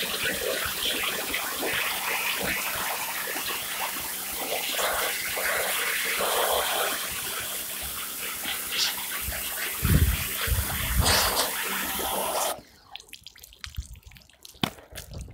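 Pressure-washer jet spraying woven olive-press mats (capachos), a steady hiss of water with a faint hum beneath and a few low thumps. The spray cuts off suddenly near the end.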